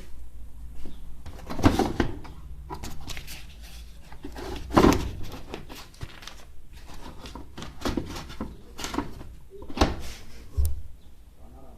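Indesit WG622TP washing machine over a low steady hum, with irregular knocks and clunks spaced a second or more apart, some loud: the weird noise the machine is making.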